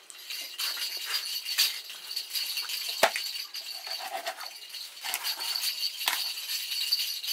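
A large knife chopping through a raw chicken onto a wooden log chopping block: a few sharp chops, the heaviest about three seconds in, over a steady high-pitched buzz.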